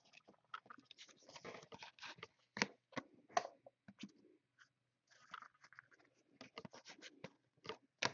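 Trading cards and their packaging being handled: faint, irregular rustling, slides and clicks of cards being flipped through and set down.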